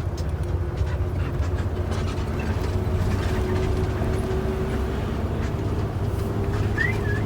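Steady engine and road rumble inside a moving intercity bus, with a faint steady whine and a few short high chirps near the end.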